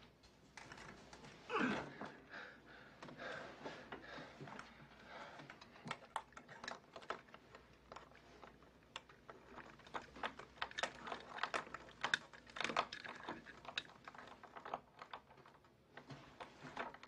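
A hairpin picking an old door lock: many small metallic clicks and scrapes in the keyhole, irregular and quick, with one louder sliding sound about a second and a half in.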